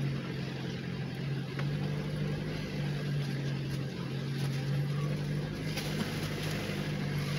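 Vehicle engine running at a steady pitch while driving.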